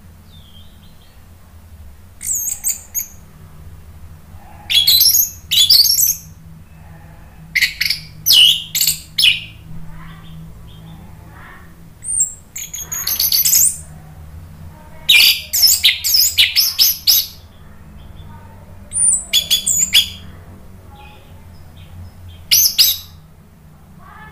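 Orange-headed thrush singing: about seven loud phrases of rapid, high warbling whistles and chatter, each a second or two long and a few seconds apart. A steady low hum runs underneath.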